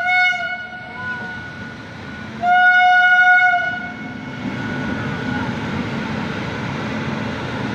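Train horn: the tail of one long blast fades just after the start, and a second blast of about a second sounds about two and a half seconds in. Then the steady rumble of the train running past on the rails.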